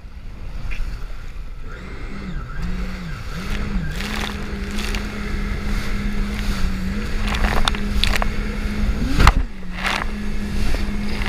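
Jet ski engine heard from on board under wash of water and wind: its note comes up about two seconds in, dips twice, then holds steady at speed. Sharp splashes of spray and hull slaps cut in now and then, the loudest near the end.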